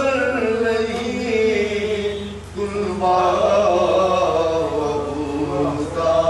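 A man chanting an Urdu salaam, a devotional poem, in long held melodic notes with no instruments. A steady low hum runs underneath.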